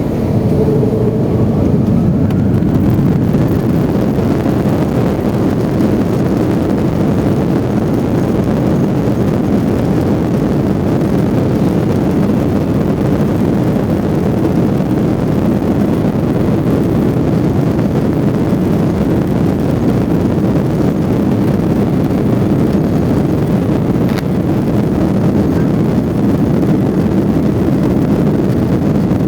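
Airbus A330-300's jet engines at high takeoff thrust heard inside the cabin: a loud, steady rumble mixed with rushing air noise.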